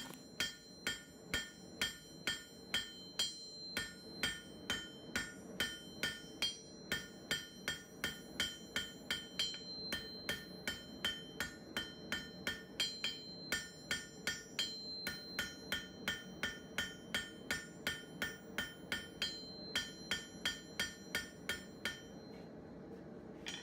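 Hand hammer striking hot square steel stock on an anvil in a steady rhythm of about two to three ringing blows a second: forging a one-sided taper. The blows stop shortly before the end.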